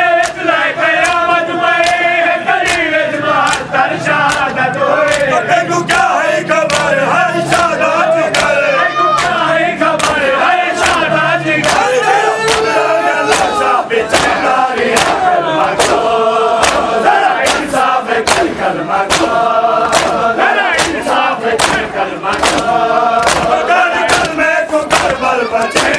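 A crowd of men chanting a Saraiki noha, a Shia lament, in unison, over a steady beat of sharp slaps of hands on bare chests (matam).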